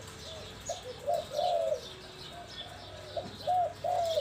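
Spotted dove cooing: a string of short, rounded coos, the longest and loudest about a second and a half in and near the end. Other small birds chirp faintly and high-pitched behind it.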